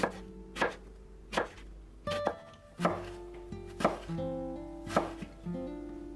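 Kitchen knife chopping through eggplant onto a wooden cutting board: about seven separate sharp cuts, unevenly spaced, with soft plucked-guitar music underneath.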